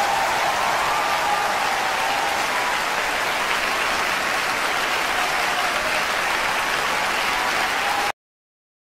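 Audience applauding steadily in a concert hall; it cuts off abruptly about eight seconds in.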